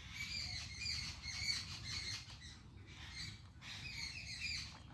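Faint birds chirping in the background: many short, repeated high chirps.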